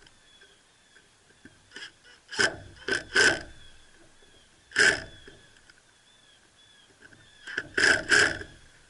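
Wooden rod-rack pieces being handled and worked on a table: a few knocks and scrapes of wood, in three short bunches, the last the loudest.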